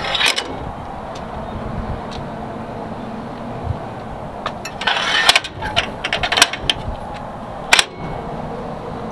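Scattered clicks and knocks of hands handling the fire truck's metal latches and fittings: a few just after the start, a cluster about five to six and a half seconds in, and one sharp click near the end, over a steady low rumble.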